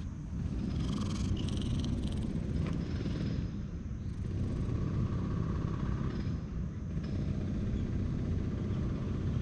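Tabby-and-white cat purring as its head is stroked, under a steady low rumble, with a brief rustle about a second in.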